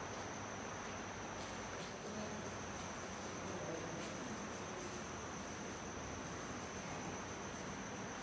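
Faint, steady high-pitched trill held on one note over a low background hiss, with a few faint ticks.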